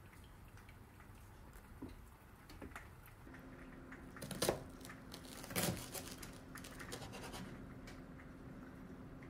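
Kitchen knife sawing through a slice of toast on a cutting board: two scraping, crunching cuts about a second apart, over a faint steady hum.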